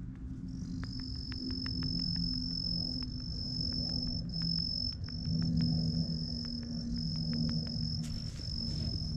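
A singing insect's steady high-pitched trill, with short breaks, starting about half a second in, over a low steady hum.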